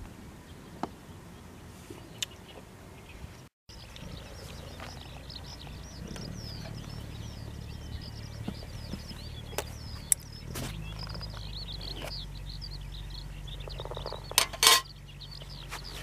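Aluminium mess tin handled, with a few light clicks and then a louder ringing metallic clatter near the end as its lid comes off. Birds chirp steadily throughout.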